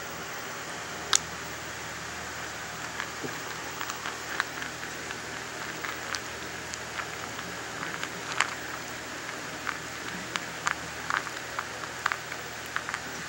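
Chihuahua puppy eating dry kibble from a plastic bowl: irregular small clicks and crunches of kibble being bitten and knocked against the bowl, over a steady hiss. The puppy is new to hard food, and kibble falls from the sides of its mouth back into the bowl.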